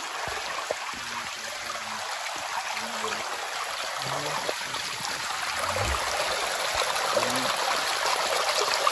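Stream water rushing over rocks at a waterfall: a steady hiss of running water that grows a little louder toward the end.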